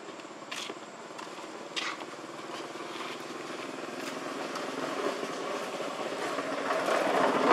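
A motor vehicle's engine, most likely a motorbike, running and growing steadily louder as it approaches. A couple of sharp clicks come in the first two seconds.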